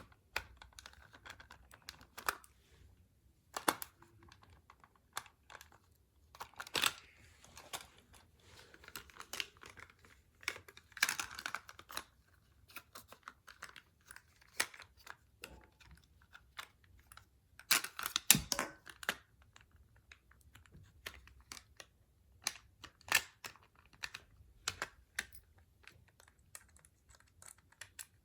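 Plastic toy parts clicking, snapping and scraping under hand work, in irregular bursts with denser clusters about a quarter, a third, two-thirds and four-fifths of the way through.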